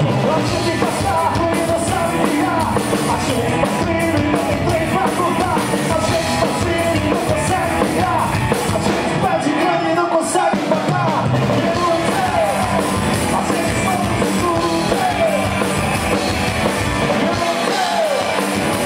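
Live rock band playing electric guitars, electric bass and a drum kit, with a lead vocalist singing.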